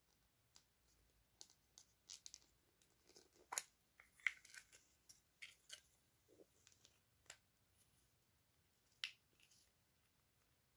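Hands handling and opening a small plastic wrapper: faint, scattered crinkles and clicks, busiest around the middle, with one sharper click near the end.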